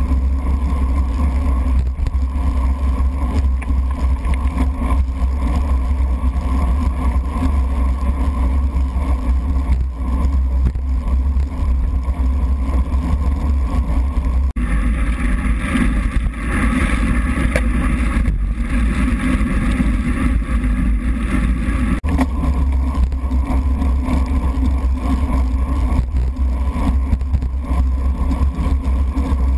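Loud, steady wind buffeting and road rumble picked up by a bike-mounted GoPro sealed in its waterproof housing while riding fast on a wet road. The noise turns harsher and brighter for several seconds mid-way, from about 15 to 22 seconds in.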